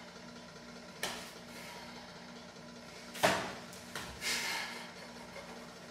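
Sharp smacks and a swish from a barefoot martial artist's strikes and stances in a White Crane kung fu form. There is one smack about a second in and a louder one about three seconds in, followed by a short hissing swish, over a steady low room hum.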